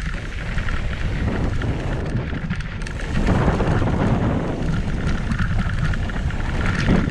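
Wind rushing over the camera microphone of a mountain bike descending at speed, mixed with the tyres rumbling over a packed-dirt trail; it gets louder about three seconds in.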